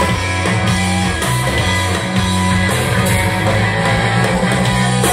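Rock band playing, electric guitars over bass and drums, in an instrumental stretch without singing.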